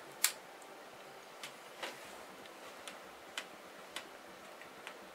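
Faint, unevenly spaced clicks of a man chewing a mouthful of strawberry and roll cake with his mouth closed, with one sharper click just after the start.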